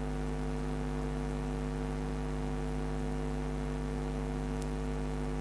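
Steady electrical mains hum: a low, even drone with several overtones, unchanging throughout.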